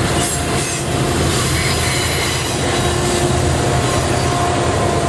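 Double-stack intermodal freight train rolling past, with Union Pacific rear diesel locomotives passing near the end. The wheels grind and squeal on the rails over a steady engine drone, echoing off the canyon walls.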